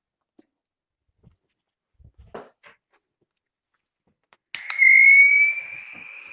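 Small handling knocks, then about four and a half seconds in an electric plastic-welding tool is switched on with a click and gives a loud, high whine that rises slightly in pitch over a hiss, then settles to a steady lower level.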